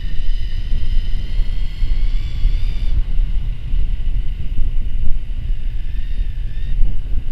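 Wind buffeting the microphone of a camera on a moving electric mountain bike, a heavy low rumble throughout. Over it runs the high, steady whine of the e-bike's electric motor, which thins out about three seconds in.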